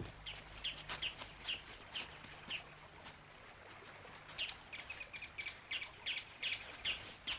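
Small birds chirping in short, repeated calls, with a few faint knocks among them.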